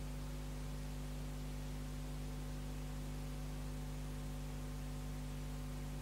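Steady electrical mains hum with a stack of buzzing overtones over an even hiss of tape noise; no sound of the disc tray is heard.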